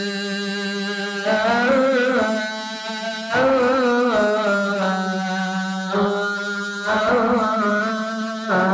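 A man chanting the azan, the Muslim call to prayer, in long, ornamented sung phrases with brief breaths between them.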